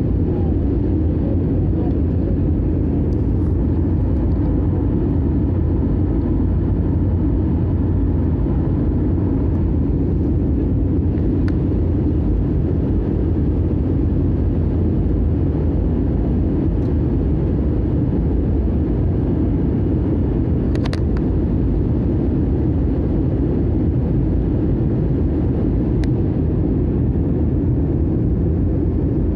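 Steady cabin noise of a jet airliner in descent, heard from a window seat over the wing: engines and rushing air as an even low rumble. A few faint clicks break in, the clearest about two-thirds of the way through.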